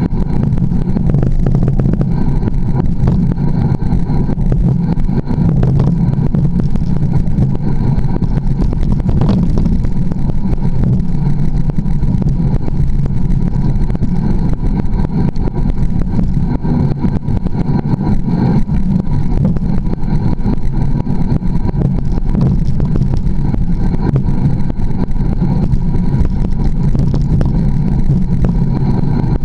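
Mountain bike rolling slowly down a rough forest singletrack, heard through a camera mounted on the bike: a steady, dense rumble and rattle from the tyres, frame and camera mount jolting over roots and rocks.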